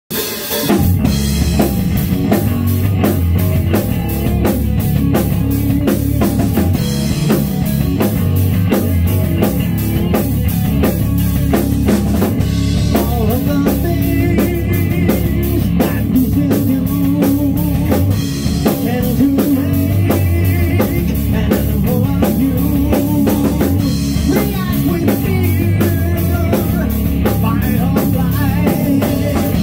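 Live rock band playing loud: distorted electric guitar, bass guitar and a full drum kit with a steady beat, with a lead singer's vocals. The full band comes in within the first second.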